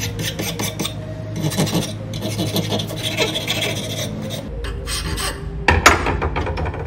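Hand file rasping back and forth across the cut end of a fibreglass tent pole held in a vise, bevelling off its sharp, splintery edges. The strokes stop about four and a half seconds in, followed by a couple of sharp knocks near the end.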